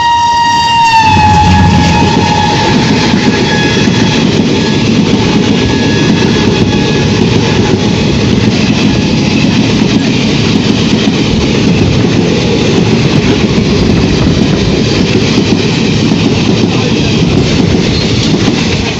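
An express train, headed by an ALCO diesel locomotive, blows a single-tone horn as it rushes past at speed. The horn drops sharply in pitch about a second in as the locomotive passes and fades over the next few seconds. The coaches follow with a loud, steady rush of rolling noise and wheel clatter.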